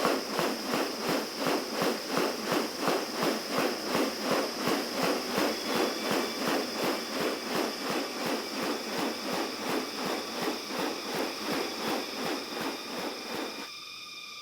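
Rainforest insects: a steady high-pitched buzzing with an even pulsing, about two to three pulses a second, which fades out near the end and leaves only the steady high buzz.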